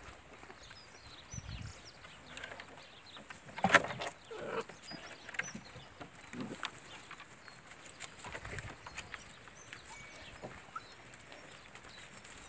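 Puppies playing around a stack of wooden planks, with small yips and scuffles and one sharp knock about four seconds in. Hens cluck and small birds chirp in the background.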